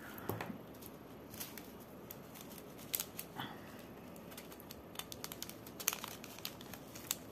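Scattered small clicks and taps with some plastic crinkling: diamond-painting drills being handled with the applicator pen and pressed onto the canvas.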